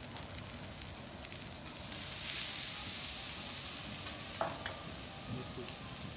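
Wagyu beef searing on a hot steel teppanyaki griddle, a steady sizzle that swells louder about two seconds in as the meat is turned onto the hot plate.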